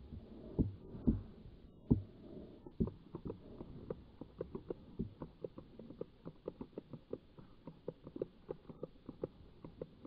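Daiwa Tatula 100 baitcasting reel being handled and cranked close to the camera. A few knocks come in the first three seconds, then a steady ticking about four times a second as the line is wound in.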